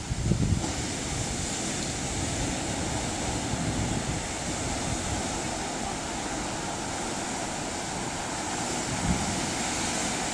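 Ocean surf breaking under a coral rock arch and washing up a sand beach, a steady rushing wash. Wind rumbles on the microphone now and then.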